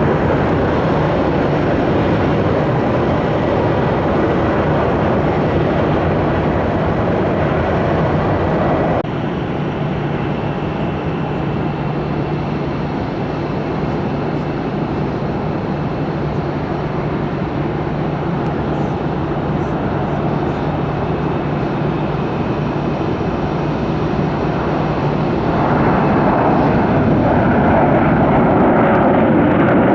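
Jet airliner engine noise during landings: a Boeing 737-8 MAX's CFM LEAP-1B turbofans, then, after an abrupt cut about nine seconds in, a Boeing 737-900's CFM56 turbofans, which grow louder near the end.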